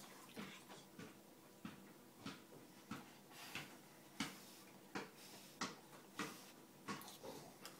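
A small child eating instant cup noodles with a fork: faint, short eating sounds come roughly one or two a second, the loudest about four seconds in.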